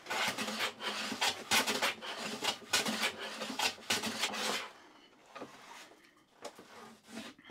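Hand plane cutting along the edge of a wooden board, in short rasping strokes of about two a second for the first four and a half seconds, then a few light knocks. The plane is angled up near one side so the blade does not break out the far edge.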